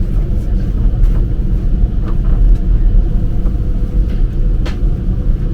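Steady low rumble of an Airbus A330-300's cabin with the engines running on the ground, with a few faint clicks near the middle and near the end.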